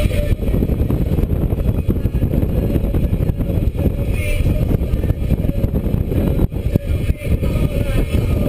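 Cabin noise of a 2013 Scion FR-S driven on track: its 2.0-litre flat-four engine running, mixed with road and wind noise, heard from inside the car.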